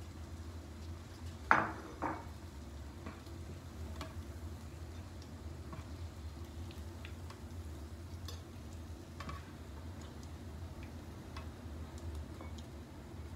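Metal spatula knocking and scraping against a nonstick frying pan as fried fish are lifted out of the hot oil: two sharp knocks about a second and a half in, then scattered light taps and clicks. Under it, a faint sizzle of oil and a steady low hum.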